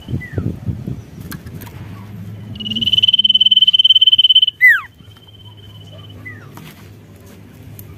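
Common iora (sirtu) singing: a loud, fast, high trill held for about two seconds, ending in a quick downward-sweeping whistle. Short soft falling chirps come near the start and again about six seconds in.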